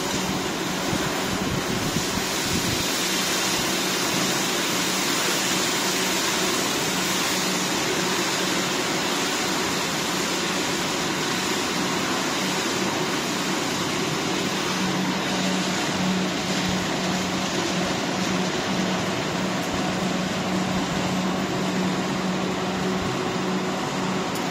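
Popcorn production-line machinery running: a steady whirring noise with a low hum from the motors and the inclined stainless-steel conveyor carrying coated popcorn.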